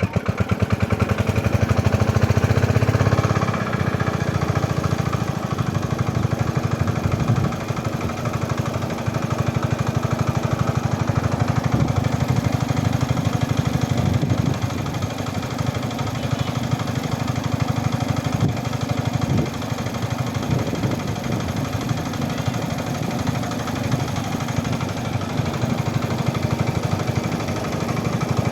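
A small engine running steadily with a fast, even chugging pulse. It settles from a higher pitch to its running speed in the first few seconds.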